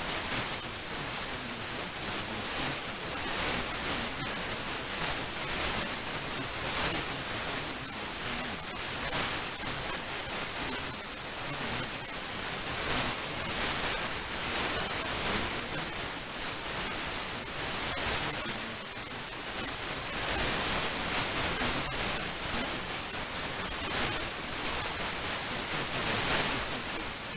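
FM radio static: a steady hiss from a weakly received FM signal, its level rising and falling a little, with no tones or voice.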